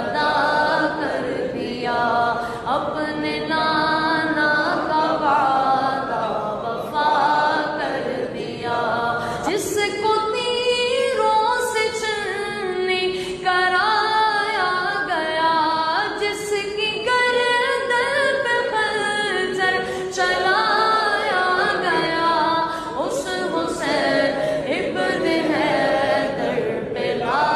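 A naat, an Islamic devotional song, sung a cappella by layered voices in a flowing, ornamented melody.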